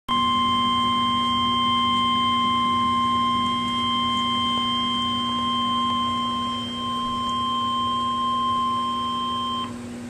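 NOAA Weather Radio 1050 Hz warning alarm tone: one steady, piercing beep held for about nine and a half seconds that cuts off sharply near the end, with a low hum underneath. It is the alert that an urgent warning, here a tornado warning, is about to be read.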